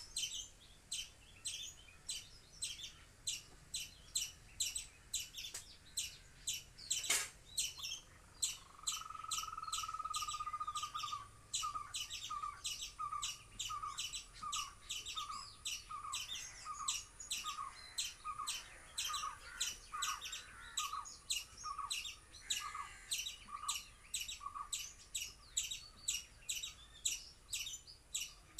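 Birds calling: a high chirp repeated about twice a second throughout. About eight seconds in, a lower whistle is held for a couple of seconds, then breaks into a rapid run of short notes that stops near the end. A single sharp click comes about seven seconds in.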